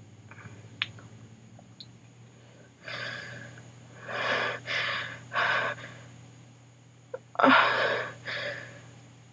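A woman's sneeze build-up: a run of breathy, gasping inhales, the loudest about seven and a half seconds in, as the sneeze comes on.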